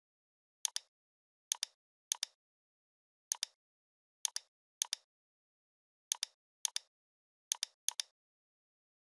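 Computer mouse left-button clicks, about ten at uneven intervals. Each is a quick double tick of press and release, with dead silence between.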